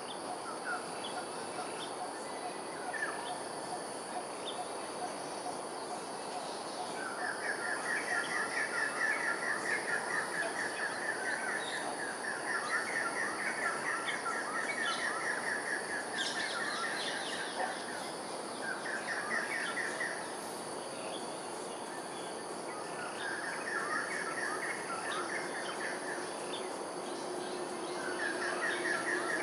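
Birds calling: one bird repeats a fast, rapidly pulsed trill lasting a few seconds, about five times, among scattered short chirps. Under it runs a steady high-pitched insect hum.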